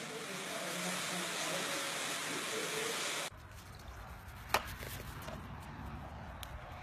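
Heavy rain pouring steadily, cutting off abruptly about three seconds in. A quieter stretch with a low rumble follows, broken by one sharp knock a second or so later.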